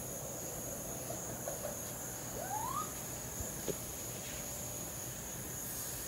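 Baby raccoons calling for their mother: a few short, high chirps, then a louder cry that rises in pitch about two and a half seconds in, and another brief call a second later, over a steady high-pitched trilling in the background.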